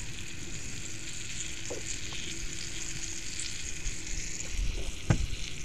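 Flour-coated chicken legs frying in a cast iron skillet on a propane camp stove: a steady, even sizzle, with a single sharp tap about five seconds in.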